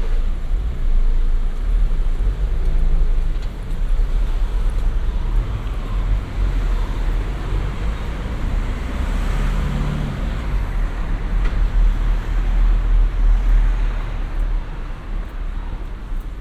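City road traffic passing close by, a steady rumble of cars and tyres, with one vehicle passing loudest about ten seconds in before the traffic eases near the end.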